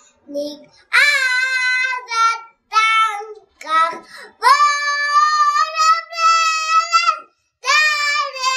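A young boy singing loudly on his own, with no accompaniment, in short phrases and one long held note in the middle.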